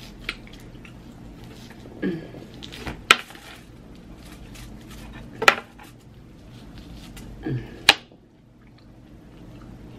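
Eating at the table, with three sharp clinks of tableware spaced a couple of seconds apart.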